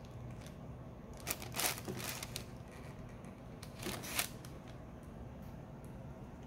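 Rustling and scraping handling noise as new sneakers are moved about in their cardboard shoebox, in two short bursts, about a second in and again around four seconds.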